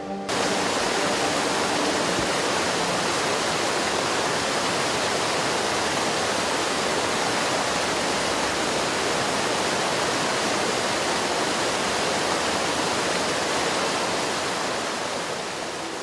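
Water rushing over rocks in a fast stream: a steady, even rush that starts abruptly just after the beginning and eases off slightly near the end.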